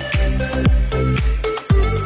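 Background music with a steady kick drum about two beats a second over sustained synth tones.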